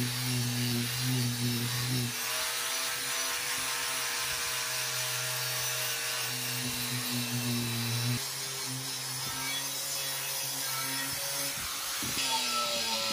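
Handheld angle grinder running against the inside of a cast iron skillet, scouring the iron surface clean. Its steady motor hum shifts in pitch a couple of times as the tool is pressed and eased, under a constant hiss of scraping.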